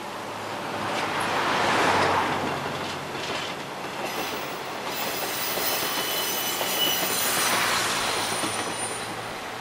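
A KiHa 185 series diesel railcar passing along the rails, loudest about two seconds in, then fading and swelling again as it runs out of sight. In the second half, thin high squeals from the wheels sound over the running noise.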